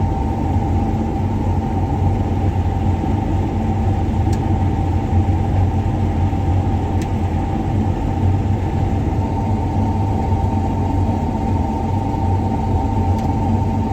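John Deere combine running steadily at working speed, heard from inside the cab: a constant low drone with a steady high whine over it.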